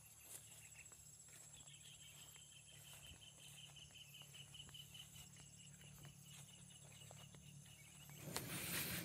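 Near silence with a faint insect chirping in rapid, even pulses, starting about a second and a half in and stopping shortly before the end, over a faint low hum.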